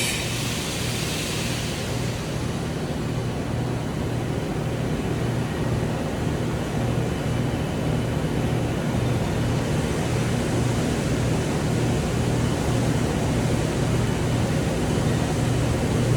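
TIG welding arc buzzing steadily, a low electrical hum under a constant hiss.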